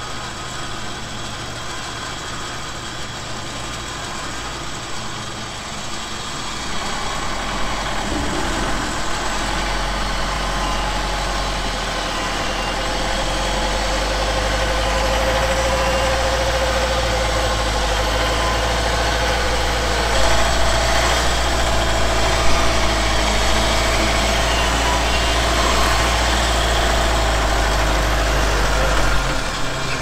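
Pickup truck engine running while its front winch reels in the cable, dragging the truck and its off-road caravan forward because the mud-clogged tyres cannot get traction. The sound grows louder a few seconds in, with a steady whine over the engine, and drops away just before the end.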